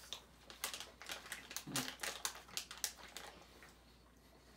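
Wet mouth clicks and smacks, quick and irregular, for about three seconds, then stopping: chewing and licking sounds.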